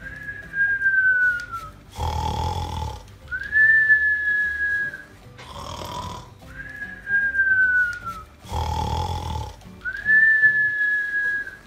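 Cartoon-style snoring meant as the dog's: a snorting in-breath followed by a long whistled out-breath, repeated about four times in an even rhythm.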